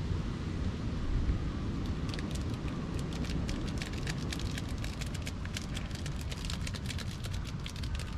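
Steady low rumble of wind on the microphone, with dense, irregular light crackling clicks starting about two seconds in.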